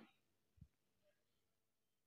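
Near silence: room tone, with one faint, brief low thump about half a second in.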